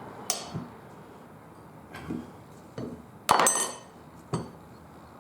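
Several separate sharp metallic clinks and knocks of tools and metal parts being handled, the loudest about three seconds in with a brief ring.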